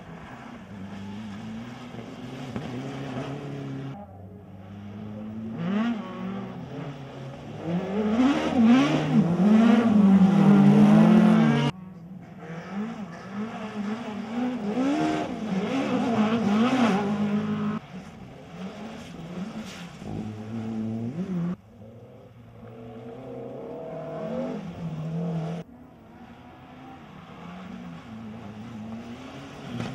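Rally cars driven hard through a corner one after another, among them a Mitsubishi Lancer Evolution and a Peugeot 106: engines revving up and down through gear changes and lifts, loudest about eight to twelve seconds in. The sound cuts abruptly from one car's pass to the next several times.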